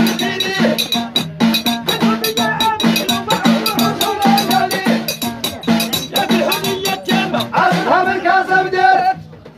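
Abidat Rma chant: men's voices singing together over small hand drums beating a quick, steady rhythm. The music stops suddenly shortly before the end.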